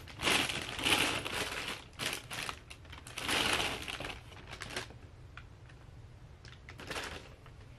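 Clear plastic packaging bag crinkling and rustling in the hands as an item is pulled out of it, in a run of bursts over the first five seconds, then a short rustle about seven seconds in.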